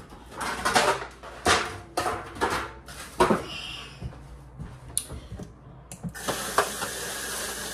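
Cookware clattering and knocking at a kitchen sink, several sharp clanks in the first few seconds. About six seconds in, the tap is turned on and water runs steadily into the sink.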